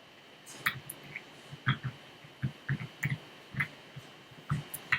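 Lock pick and tension wrench clicking and ticking against the pin stacks inside a Master Lock Pro Series lock core, in short irregular clicks, while it is picked towards the operating-key shear line.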